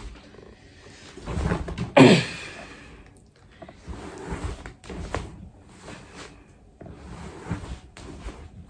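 Sit-ups on a wooden floor: the body and clothes brushing and bumping against the floorboards with each repetition, with one loud thump about two seconds in.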